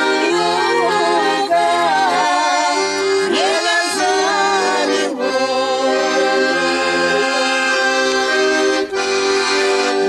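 Piano accordion playing a folk song, its left-hand bass notes alternating in a steady rhythm under the melody. A woman's voice sings with vibrato over it for about the first four seconds, then the accordion carries on alone.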